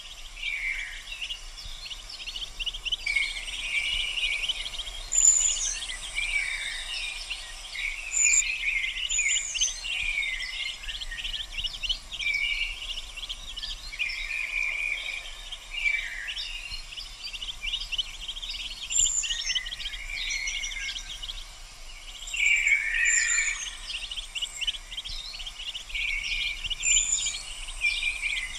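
Birds chirping and calling without a break: a dense run of short high chirps, with now and then a falling call and a few higher notes on top.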